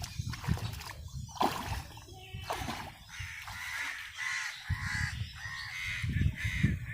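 Crows cawing repeatedly, with a low rumbling noise at the start and again near the end.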